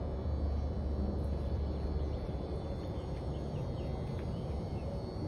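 Steady low outdoor rumble with a few faint bird chirps.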